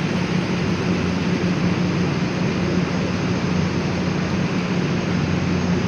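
Steady factory-floor machinery noise: a constant mechanical din with a low, even hum that does not change.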